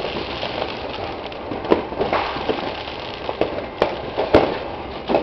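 Fireworks and firecrackers going off all around: a steady crackle with several sharp bangs scattered through it, the loudest about four seconds in.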